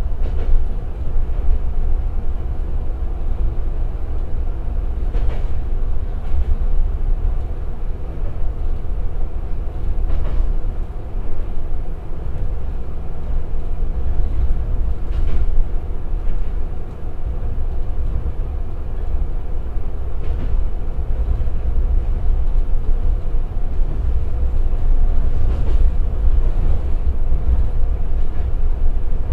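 Interior running sound of a Tsugaru 21 diesel railcar at about 40 km/h: its Niigata Tekko DMF13HZ diesel engine and wheels on rail give a steady low rumble. A light clack from the rail joints comes roughly every five seconds.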